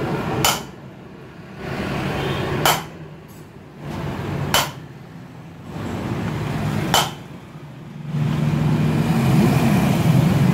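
Four sharp metal hammer strikes, about two seconds apart, on a socket used as a drift to drive the rear wheel bearing in the brake drum hub of a Maruti Alto 800. A steady low rumble grows louder near the end.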